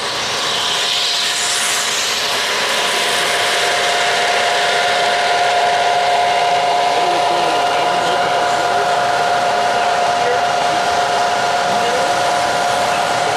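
O-gauge model train running on three-rail track: a diesel locomotive and its freight cars rolling past with a steady whirring, rolling noise and a steady hum.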